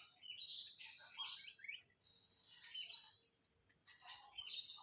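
Faint birdsong: small birds chirping and twittering in three short bursts.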